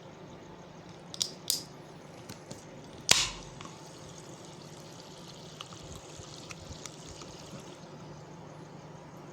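Sparkling-water can being handled: a few sharp clicks and, about three seconds in, a louder pop that trails off in a short fizz, over a faint steady hiss.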